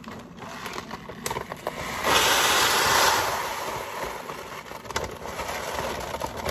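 Clear plastic food bag crinkling and rustling as it is opened and handled, with dry crumbs shifting inside. A louder stretch of rustling starts about two seconds in and lasts about a second.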